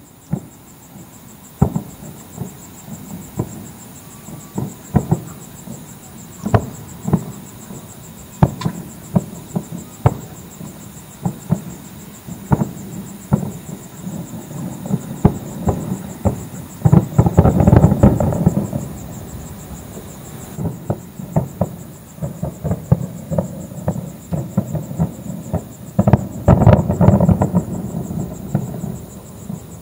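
Fireworks display: aerial shells bursting in a steady series of bangs about a second apart, with two dense volleys of rapid bangs, one about two-thirds of the way through and one near the end.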